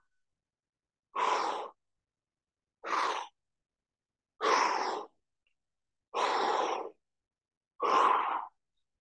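A man breathing out hard through the mouth, five forceful exhalations about every second and a half, one with each rep of a weighted stability-ball crunch as he strains to lift a heavy dumbbell.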